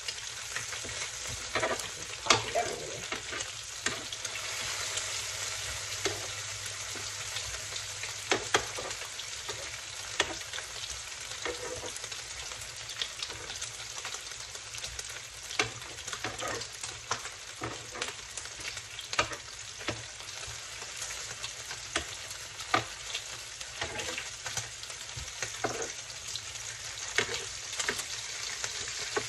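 Bacon sizzling on an electric griddle: a steady frying hiss broken by frequent irregular sharp pops and clicks, as the strips are turned with metal tongs.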